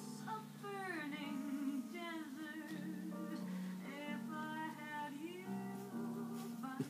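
A song with a woman singing over guitar.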